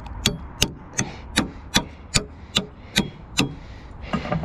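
A hand hammer striking a fishing magnet and the rusty metal stuck to it: about nine sharp blows at a steady pace of roughly two and a half a second, with two lighter taps near the end.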